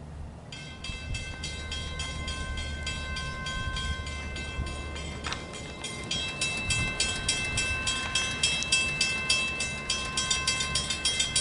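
Railroad grade-crossing warning bells ringing in rapid, evenly spaced dings, the signal that a train is approaching. They start about half a second in and get louder about six seconds in.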